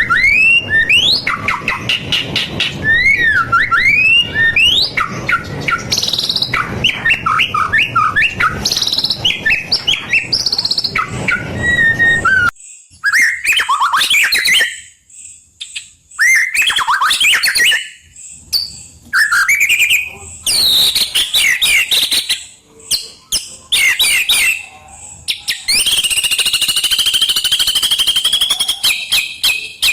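White-rumped shama singing a loud, varied song of sweeping whistled phrases and short trills, with a background hiss that cuts off abruptly about twelve seconds in. Near the end the song turns into a fast, continuous trill.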